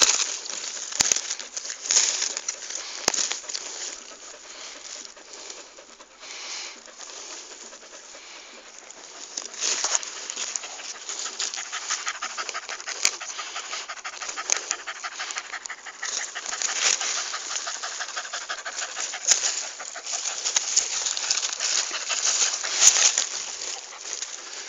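Truffle-hunting dog panting hard while scratching at the soil with its paws, digging out a white truffle it has found.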